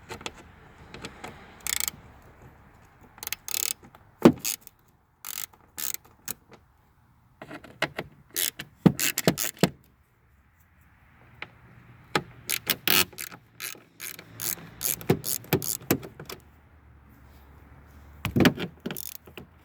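Irregular metallic clicks and knocks of a wrench with a T15 Torx bit working on the small bolts of a car tail light, loosening them.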